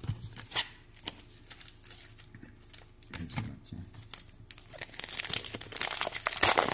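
Trading cards being handled with light scattered clicks, then from about five seconds in the loud crinkling and tearing of a foil Topps Chrome trading-card pack wrapper being opened.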